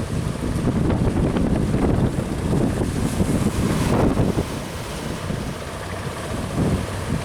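Strong wind buffeting the microphone at sea, with the wash of waves underneath. The gusting is heaviest in the first half and eases slightly about four seconds in.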